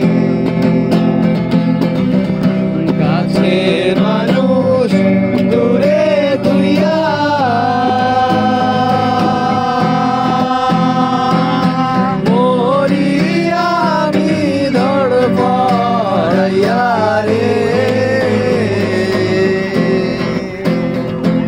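A singer performing a Bangladeshi song with acoustic guitar accompaniment, the voice winding through ornamented phrases and holding one long steady note for about four seconds from about a third of the way in.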